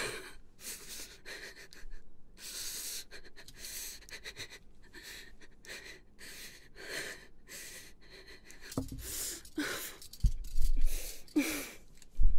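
A young woman crying: heavy, uneven breaths and gasps, with a few short voiced sobs in the last few seconds.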